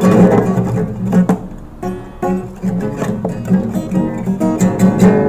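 Acoustic guitar strummed, chords struck again and again in a steady rhythm.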